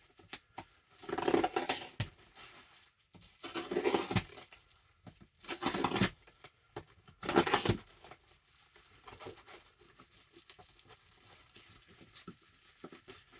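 Mail package wrapping being pulled and torn open: four loud ripping, rustling pulls within the first eight seconds, then faint crinkling as it is handled.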